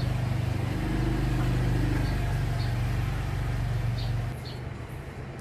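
A steady low motor-like hum that eases off about four seconds in, with a few faint small ticks over it.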